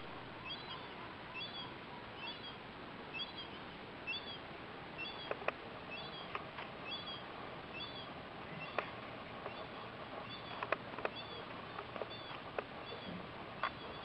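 A bird calling over and over, a short falling double chirp repeated about once a second, over a faint outdoor hiss. A few scattered sharp clicks come in from about five seconds on.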